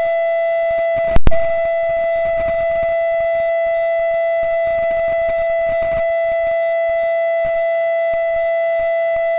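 Loud, steady feedback whine: one unbroken pitched tone with overtones, cut by a short loud pop about a second in.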